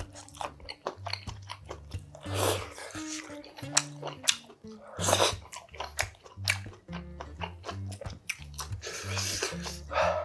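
Spicy kimchi ramen noodles being slurped and chewed, with a few louder slurps about 2.5, 5 and 9 seconds in among soft chewing and clicks, over background music with a steady bass line.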